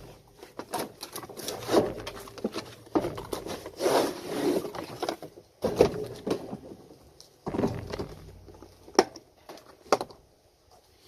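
Packaging being handled and unwrapped: irregular rustling and crinkling of wrapping and cardboard, with a couple of sharp clicks near the end.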